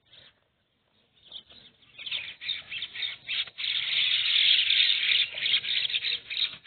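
Loud, dense chattering of many birds calling at once. It is faint at first, builds up about two seconds in, and is loudest near the middle.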